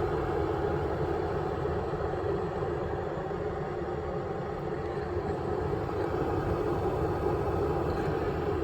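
Ovente 1.5 L glass electric kettle boiling water: a steady rumbling hiss of bubbling.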